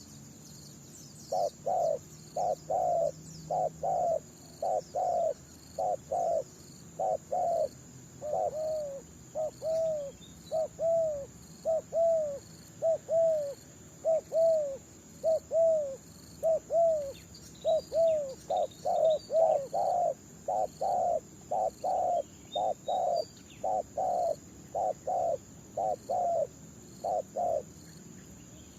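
Spotted doves cooing: a long run of short coos, close to two a second, some sliding down in pitch. The calls come from a decoy dove and a wild one answering it.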